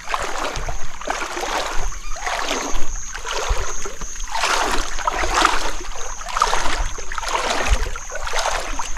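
Floodwater sloshing and splashing as a person wades through it, in repeated swooshes about once a second with low knocks among them.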